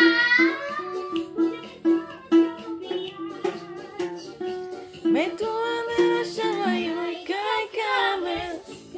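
A child singing a song over plucked ukulele-style string notes, with a rising swoop in the voice about five seconds in.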